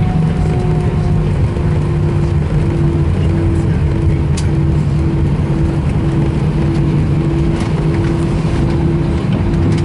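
Cabin noise inside an Airbus A320 rolling out on the runway just after landing, ground spoilers up: a steady, loud rumble with a steady engine hum, one tone easing slightly lower in pitch during the first second or so.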